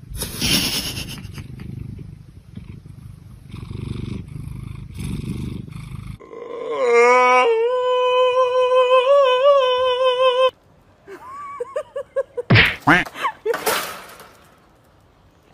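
A domestic cat purring close to the microphone, a low rumble that swells and fades with its breaths. It then gives way to a loud, wavering, high-pitched call held for about four seconds, followed by a few short squeaks and knocks.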